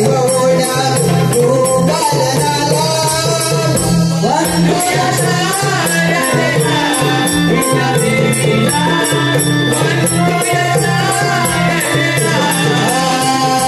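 A devotional Naman folk song performed live: a voice singing a wavering melody over steady low held notes and an even, fast jingling percussion beat.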